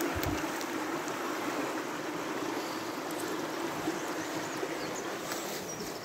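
Small woodland stream flowing steadily, a constant rush of water over a shallow bed.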